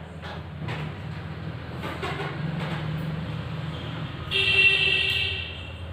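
A loud, pitched honk lasting about a second, starting about four seconds in, over a steady low hum.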